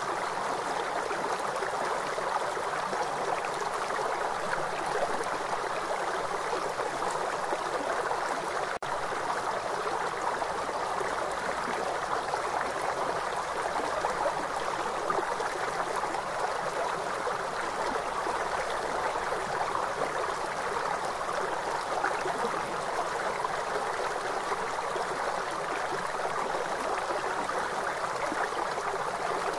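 River water flowing in a steady, even rush with no change in level.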